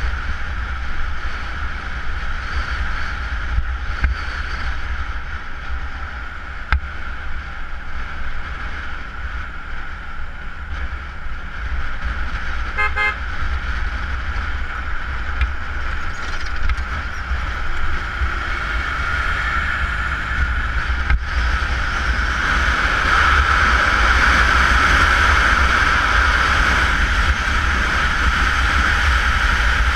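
Honda CBR motorcycle riding at speed on a highway, heard mostly as wind rushing and buffeting over the bike-mounted action camera's microphone, with engine and road noise under it. A short vehicle horn toots about 13 seconds in, and the wind noise grows louder over the last third.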